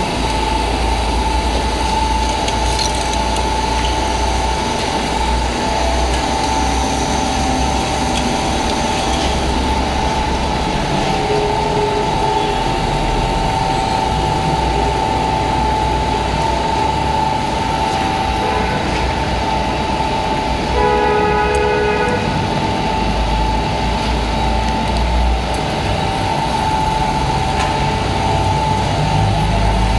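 Steady hum of running machinery with a constant high whine and a low rumble. A short horn-like toot sounds about 21 seconds in.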